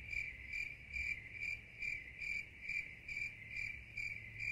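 Cricket chirping sound effect: an even series of short, high chirps about twice a second, the comic 'awkward silence' cue that variety-show editors lay over a pause.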